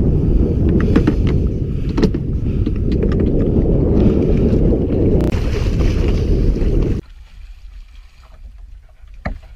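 Wind buffeting an action camera's microphone, a loud low rumble, with a few sharp clicks from handling the rod and reel. About seven seconds in the rumble cuts off suddenly, leaving a much quieter background with a couple of knocks.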